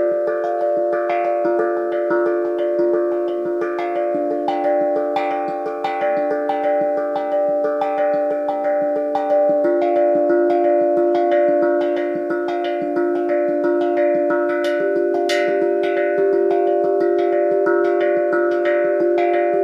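Hobojim hankdrum, a steel tongue drum tuned to D minor pentatonic (D-F-G-A-C-d-f-g), struck with two soft-tipped mallets in quick, steady strokes. Each note rings on into the next, so the tones overlap in a continuous shimmering melody.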